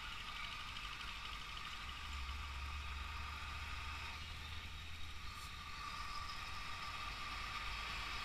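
Road traffic, with vehicle engines running steadily and a heavy truck drawing near toward the end.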